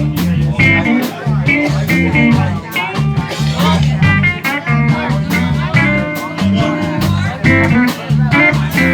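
Live blues band playing, with electric guitar lines over bass and drums and no singing.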